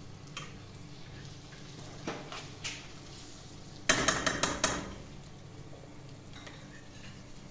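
Kitchen utensils and dishes clinking while cooking: a few light clinks, then a quick run of about five loud clatters about four seconds in.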